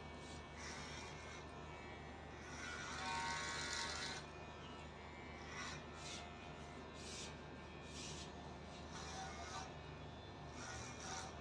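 Cordless electric hair clipper running with a steady hum, with short crunchy bursts each time the blades are worked through the hair. The loudest burst comes about three seconds in, and smaller ones follow every second or two.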